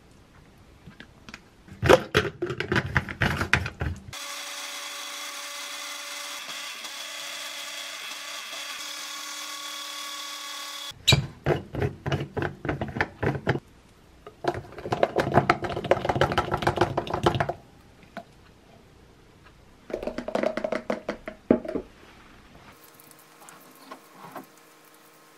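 Personal cup blender chopping apple chunks and kale in water, in loud rattling pulses that stop and start. For several seconds in the middle it runs steadily as the mix turns to juice.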